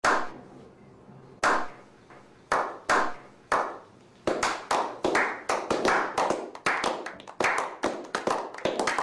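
A slow clap by a small group: single sharp hand claps about a second apart, then from about four seconds in more hands join and the clapping quickens into rapid, overlapping claps.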